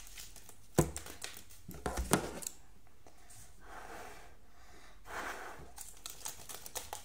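Hard plastic football shin guards being handled and set down on a tabletop: a sharp knock about a second in and a few more around two seconds, then soft rustling and crinkling.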